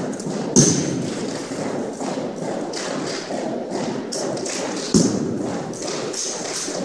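Armed drill team's moves landing in unison on a hardwood gym floor: a sharp thump about half a second in and another about five seconds in, echoing around the hall, with lighter taps in between over a steady hall murmur.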